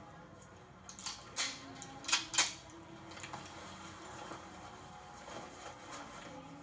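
Metallic clicks and scrapes of a silencer being fitted onto a pistol. They come as a short cluster of sharp strokes from about one to two and a half seconds in, played through a TV speaker.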